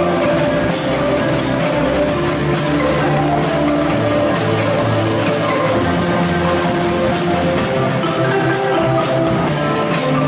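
Marimba ensemble with a drum kit playing an upbeat pop arrangement: many marimbas sounding melody, chords and bass together over a steady beat, with regular cymbal strokes on top.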